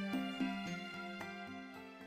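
Background music: a melody of short pitched notes, slowly getting quieter.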